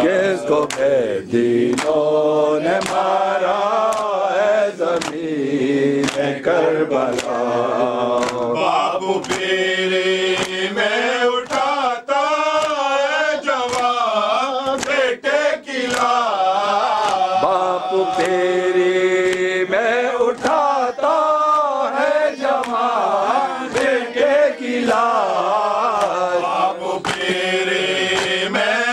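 A male reciter chanting an Urdu nauha (Muharram lament) in a drawn-out, wavering melody, with rhythmic chest-beating (matam) strokes about once a second.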